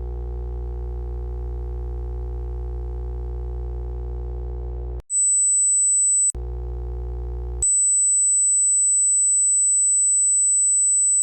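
Steady electronic tones: a low buzzing hum for about five seconds, then a single high-pitched sine tone for just over a second, the hum again for about a second, and the high tone once more, holding steady. Each change is an abrupt switch.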